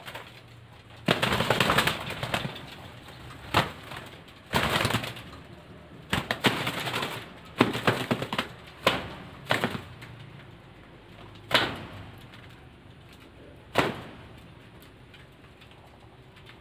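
Derkuku doves flapping their wings in about nine irregular, noisy bursts, some brief and some lasting a second or more.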